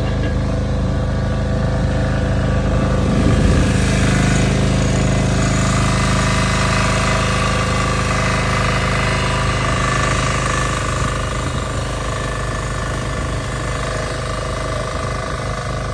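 Diesel engines of heavy machinery, excavators and a crane, running steadily as a low drone of steady tones. It grows a little louder a few seconds in and eases off in the second half.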